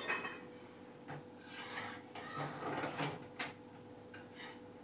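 Kitchen handling noises at the stove while a pulka cooks on a tawa: a sharp knock at the start, then rubbing and scraping with a few light clicks.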